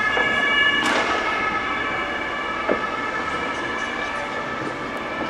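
Emergency vehicle's two-tone siren (Martinshorn) sounding steadily, with a single sharp firecracker bang about a second in.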